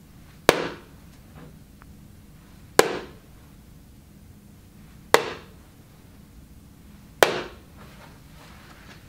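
Four magnetic darts striking a magnetic dartboard one after another, about two seconds apart, each hit a sharp knock with a short ring-out.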